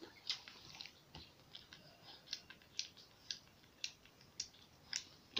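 Faint wet clicks and smacks, about two a second, from the mouths of a mother dog and her newborn puppies.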